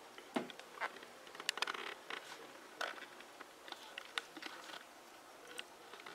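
Faint handling noise: scattered light clicks, taps and short scrapes at irregular intervals, the busiest cluster about one and a half to two seconds in.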